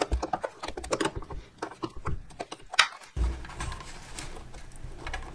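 Scattered small metallic clicks and taps of a flare-nut wrench working the clutch line fitting on top of a clutch master cylinder, with one sharper click nearly three seconds in.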